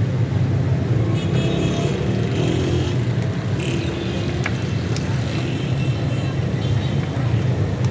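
Steady low rumble of roadside street noise, with faint higher tones and a few sharp clicks over it.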